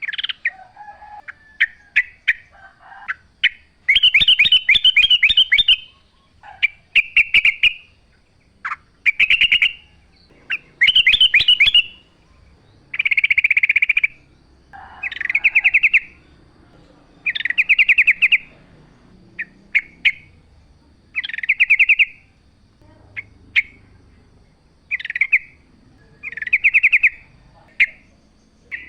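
Sooty-headed bulbul (trucukan) singing. Short phrases of fast chattering notes repeat about every two seconds, with a few single chips between them.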